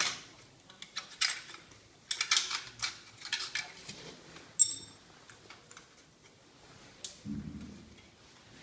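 Metal parts of a cadet GP rifle clicking and clinking as the rifle is handled, with a bright ringing ping about four and a half seconds in, another sharp click about seven seconds in, and a short dull thud just after it.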